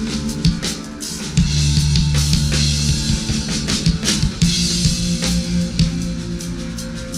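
Rock band playing an instrumental passage without vocals: a drum kit with bass drum, snare and crashing cymbals over sustained bass and guitar notes.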